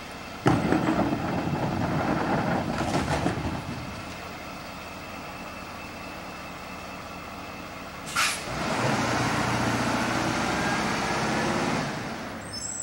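CCC Integrated Rear Loader garbage truck: a loud rattling clatter of a cart being emptied into the rear hopper for about three seconds, then the engine idling. Just after eight seconds a short hiss of the air brakes releasing, and the engine pulls the truck away with rising pitch, fading near the end.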